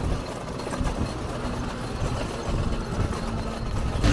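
Motor vehicle engines running with a low, uneven rumble and a faint steady hum.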